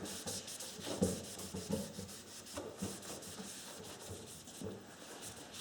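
A chainsaw being cleaned by hand: faint, irregular rubbing and scraping strokes over its housing, with a few light knocks.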